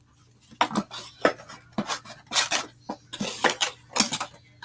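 Small hard items clacking and clinking together as they are handled and sorted by hand: a quick, irregular series of sharp clicks.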